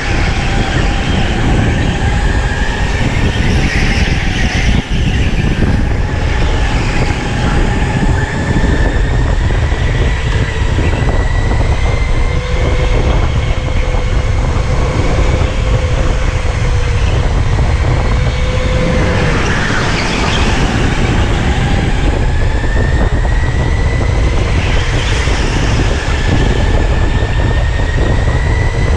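Electric go-kart's motor whining as it races, the pitch climbing slowly with speed, dipping about two-thirds through and climbing again, over a heavy low rumble picked up by the camera on the kart.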